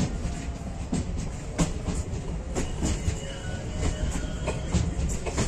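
Passenger train running over a railway bridge, heard from an open coach door: a steady low rumble of wheels on rails with sharp clicks and knocks at irregular moments.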